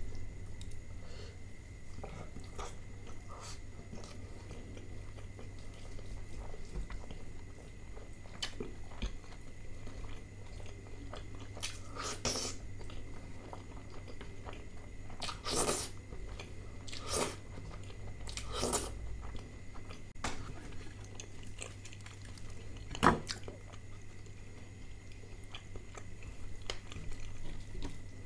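Close-miked eating sounds of butter chicken and naan eaten by hand: chewing and biting, with scattered small clicks, several louder smacks in the middle and one sharp one later on. A steady low hum runs underneath.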